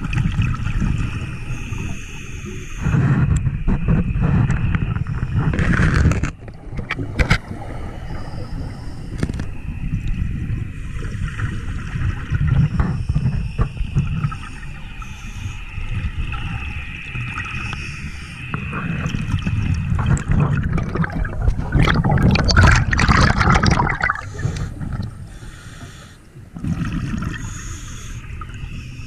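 Scuba diver breathing underwater through a regulator: bubbles gurgle and rumble in swells every several seconds, the loudest about three-quarters of the way through.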